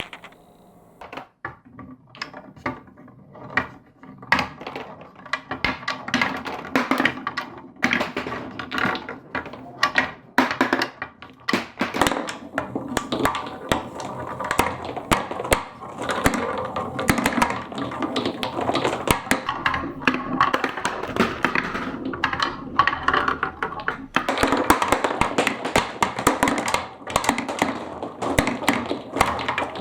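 Marbles clicking and clattering down a marble run: a few scattered clicks at first, building into a dense, continuous rattle as more and more balls run along the track.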